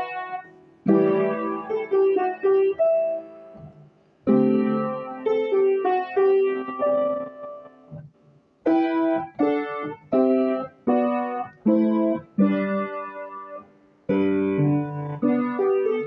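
Solo piano playing a slow melody over chords, in phrases with short pauses about four, eight and fourteen seconds in.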